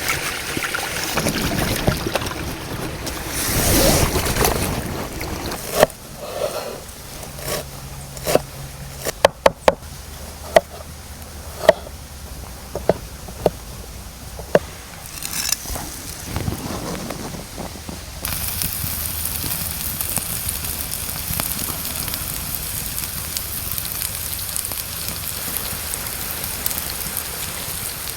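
Camp cooking sounds: a rustling scrape, then a run of sharp knocks and clinks, about a dozen, and from about two-thirds of the way through a steady high hiss.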